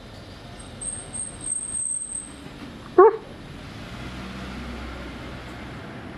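A dog gives one short, sharp yip about three seconds in. A thin high whine sounds faintly in the first two seconds, and a low rumble sets in from about four seconds on.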